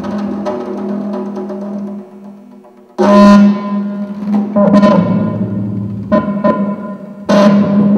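Live improvised music for frame drum and electronics: a sustained pitched drone fades away about two seconds in, then four sudden loud struck attacks follow, each leaving a ringing pitched tone.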